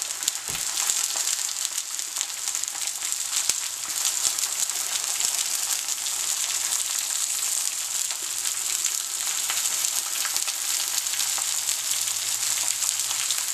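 Slices of gold zucchini sizzling in hot oil in a cast-iron skillet: a steady frying hiss flecked with fine crackles.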